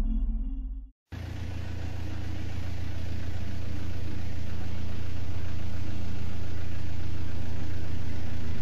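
A brief tone cuts off into a moment of silence about a second in. Then a steady, low, engine-like droning hum fades in over a few seconds and holds.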